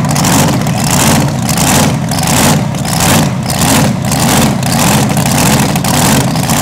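Pulling tractor's engine running hard at full throttle under load down the track, with a rhythmic surge about two to three times a second.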